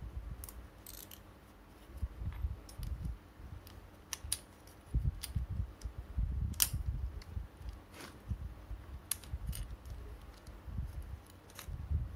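Hard plastic parts of a GAO Giraffe toy being handled and fitted together, with a spring and metal rod inside: scattered small clicks and rattles over the dull rub of hands, the sharpest click a little past halfway.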